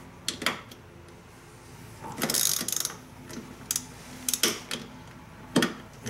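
Hand ratchet clicking as a nut is tightened onto a starter solenoid terminal stud: scattered single clicks and one fast run of clicks about two seconds in.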